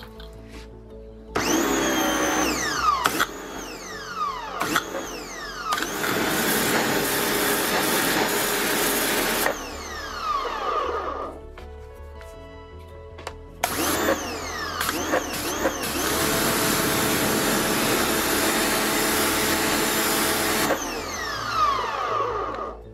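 Parkside PHD 135 C2 electric pressure washer running in two long bursts of several seconds, its motor and pump whining under the hiss of the high-pressure jet striking wooden decking. Each burst stops abruptly as the trigger is released, and the auto start-stop lets the motor wind down with a falling whine.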